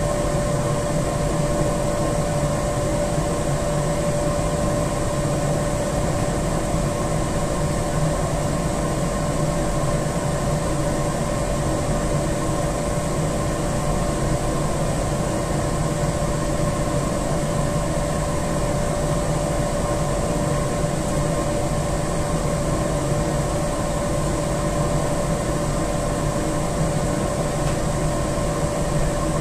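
Steady drone of boiler-room machinery, motors and fans running, with a constant whining tone over a low hum.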